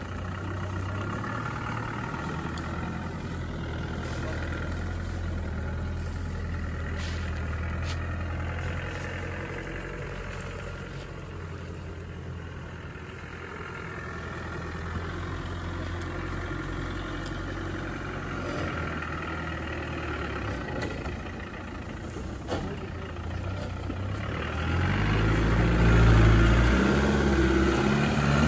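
Land Rover Discovery engine running at low revs as the vehicle crawls along, with a few faint clicks; near the end it revs up and down, louder, as it climbs a bank.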